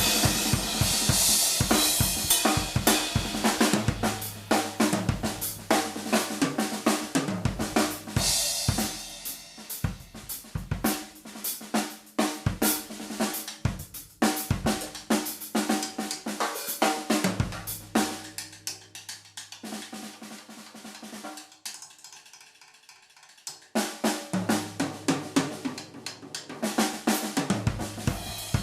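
Yamaha Stage Custom Birch Bebop drum kit being played: snare, bass drum, hi-hat and cymbals in a continuous groove. Ringing bass-drum notes come through now and then. The playing drops to a soft passage about two-thirds of the way in, then picks up again.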